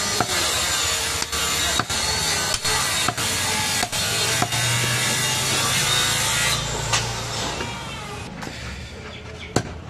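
A butcher's large knife scraping and sawing back and forth against a wooden log chopping block, in strokes about every half-second to second, fading out about six and a half seconds in. A sharp knock comes just before the end.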